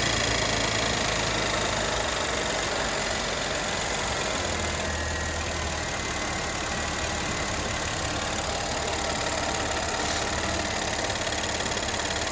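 Audi S4 engine idling steadily.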